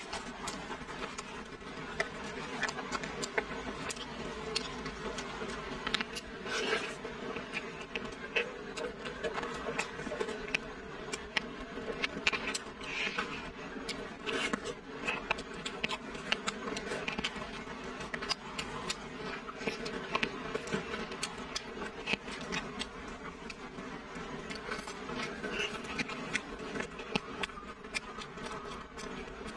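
Close-up eating sounds: chewing, lip smacks and wet clicks while biting into and tearing apart a braised, chili-coated pork shank by hand. Irregular crackles run over a steady background hum.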